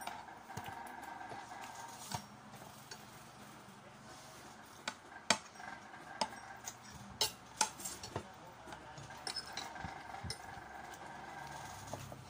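Eating utensils clinking and scraping against a plate: a scattering of sharp clinks, most of them between about five and eight seconds in.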